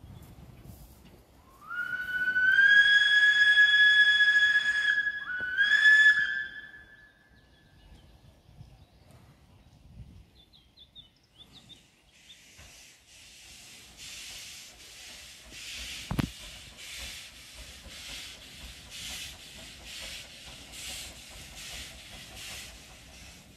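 Narrow-gauge steam locomotive's whistle: one long blast that rises in pitch as it sounds, then a short second blast. Later comes a faint rhythmic chuffing, about two beats a second, of the engine's exhaust working, with a single knock partway through.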